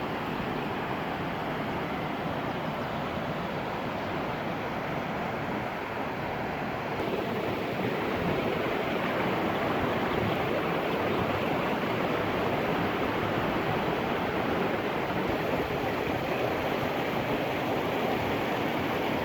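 River water rushing: a steady, even noise that gets a little louder about seven seconds in.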